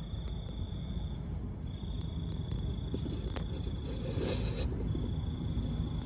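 A cricket trilling in long even stretches broken by short pauses, over a low steady rumble, with a brief rustling noise a little after four seconds in.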